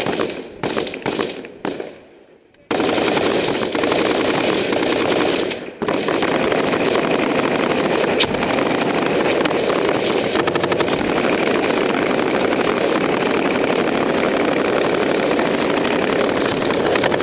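A few separate gunshots, then from about three seconds in a long, loud stretch of rapid automatic gunfire with almost no gaps, broken once briefly about six seconds in.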